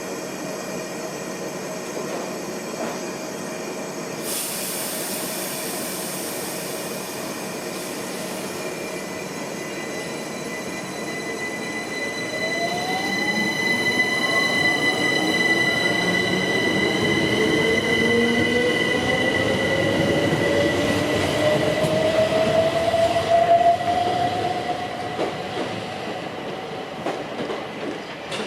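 Loud mechanical whine: steady high-pitched tones throughout, joined about halfway in by several tones that climb steadily in pitch as the sound grows louder, then easing near the end.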